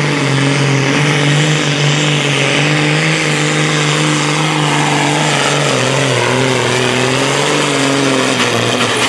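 Modified Case IH pulling tractor's diesel engine running flat out under heavy load as it drags the weight-transfer sled. Its pitch drops a little past halfway and wavers after, the engine being pulled down as the sled's load builds.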